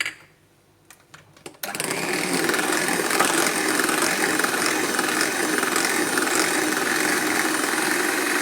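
A few clicks, then an electric mixer switches on about two seconds in and runs steadily, beating cake batter.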